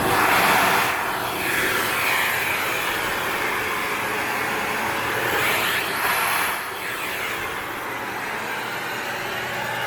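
Panasonic paper-bag canister vacuum cleaner running with its nozzle attachment: a steady motor hum under a rushing airflow whose pitch sweeps up and down as the nozzle is worked along the edges.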